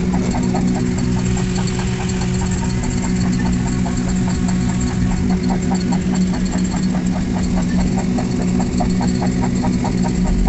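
Vehicle engine running steadily, a constant hum with a faint regular pulsing about four times a second.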